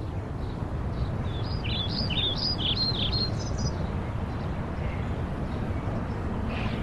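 A songbird sings a quick run of about a dozen short, high chirps, each sweeping downward, from about one to four seconds in, with a faint chirp or two near the end. Under it is a steady low outdoor rumble.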